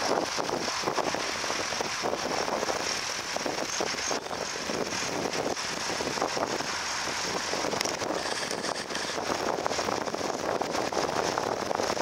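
Ford 2600 tractor's three-cylinder engine running steadily, with a fast even pulsing.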